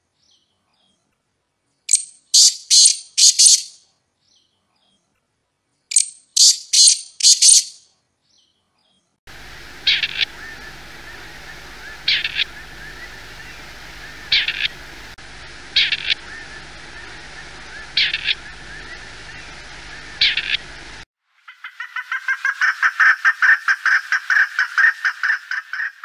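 Partridge calls. First come two bouts of four or five sharp, high calls a few seconds apart. Then, over a background hiss, single calls about every two seconds. Near the end a fast rhythmic run of calls, about eight a second, swells in loudness and holds.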